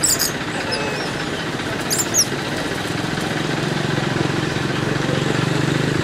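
A motor engine idling steadily, its low hum coming up about halfway through over a noisy outdoor background. A few short high squeaks come near the start and again about two seconds in.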